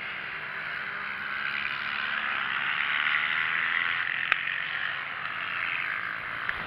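Mini GP race motorcycles running past on a wet track, the engine sound swelling to a peak about three seconds in and then fading. There is a sharp click a little after four seconds.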